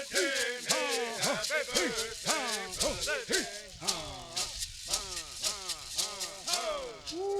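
Bird singers singing together, with hand rattles shaken in a steady beat about four times a second. The song breaks off near the end, where one voice starts a long falling note.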